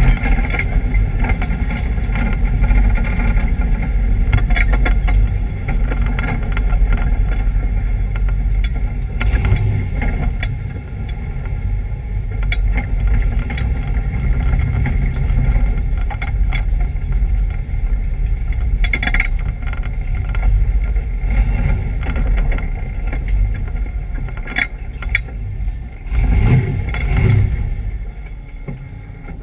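Chevrolet Camaro race car engine running through laps with a misfire, with sharp cracks now and then. The sound falls away near the end.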